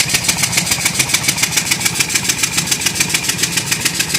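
Ford 5.4 L Triton V8 idling with a rapid, regular chug, about seven beats a second, from the right side of the engine. The chug is unchanged by a newly replaced exhaust manifold gasket, and the owner no longer knows whether it is an exhaust leak.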